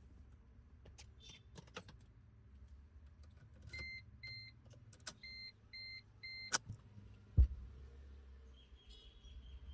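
Scattered clicks, then five short high electronic beeps, two and then three, from the car or its diagnostic equipment during immobilizer testing. A single sharp knock near the end is the loudest sound, followed by a low hum.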